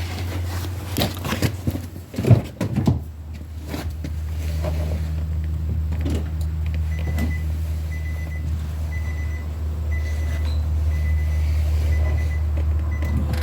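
A few sharp metal clanks and knocks from work on the wheel hub, then a steady low hum with a short, high electronic beep repeating about once a second from around a third of the way in.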